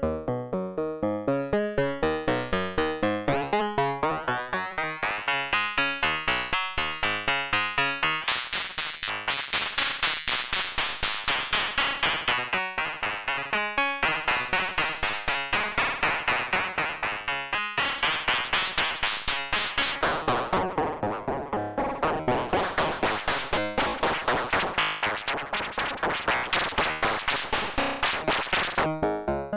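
Analog synthesizer oscillators (CubuSynth Engine dual VCO, built on 3340 chips) playing a fast, evenly repeating sequence of short notes. The notes step clearly in pitch at first, then about eight seconds in the tone turns bright, harsh and buzzy, with its brightness sweeping up and down under modulation.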